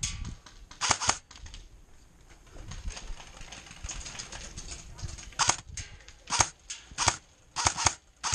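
Airsoft rifle fire: sharp single shots and quick pairs at irregular gaps, one group about a second in and more from about five seconds on.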